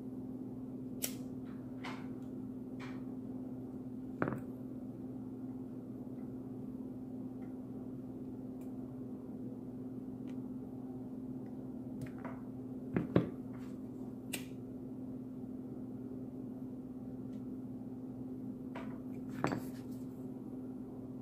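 Scattered small clicks and taps of hands handling a stainless revolver and small metal sight parts, the loudest a quick double click about 13 seconds in, over a steady low hum.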